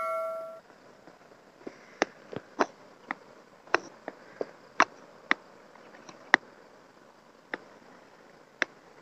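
The ringing tail of a notification-bell sound effect fades out in the first half second. Then comes a run of sharp, irregular clicks, about a dozen, thinning out toward the end, over a faint, steady, high insect buzz.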